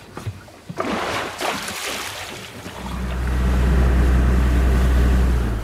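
Motorboat engine running at speed with a steady low drone, over the rush of wind and water. The rush comes first and the engine drone swells in about halfway through, then stops abruptly.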